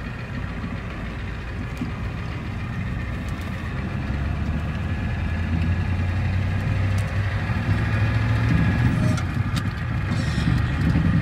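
Ford 7.3 IDI V8 diesel engine pulling the truck along a bumpy dirt road, heard from inside the cab. It grows louder and deeper about four seconds in as it works harder, with occasional knocks and rattles from the rough ride.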